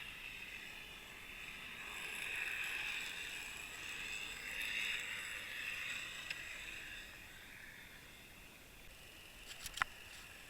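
Underwater hiss of water rushing past a submerged fishing camera, swelling and fading. A few sharp clicks come near the end.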